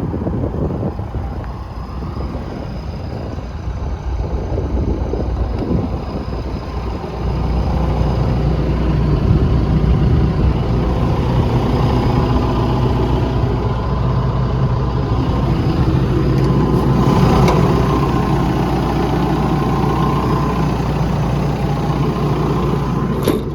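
The John Deere 4.5-litre diesel engine of a 160D hydraulic excavator running steadily. It gets louder about seven seconds in and then holds an even, steady note.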